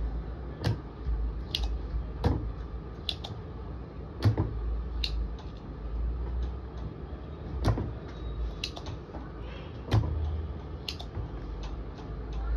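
Spring-loaded desoldering pump clicking as its plunger is cocked and snapped, about one sharp click every second or two, while solder is sucked from joints on a circuit board. A low steady hum runs underneath.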